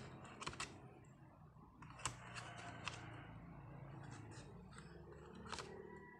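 Faint clicks and light taps of a smartphone being handled and set into its cardboard box tray, about half a dozen spread through, over a low steady hum.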